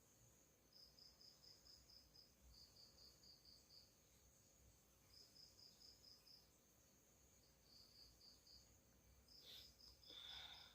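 Faint insect chirping: runs of quick high pulses, about five a second, each run lasting a second or so with short gaps between, and a brief louder chirp near the end.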